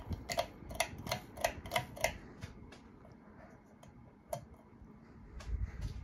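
Minka Aire Contractor Series 52-inch ceiling fan running at speed with a low rumble. Sharp ticks come about three a second for the first two seconds, and one more comes a little past the middle.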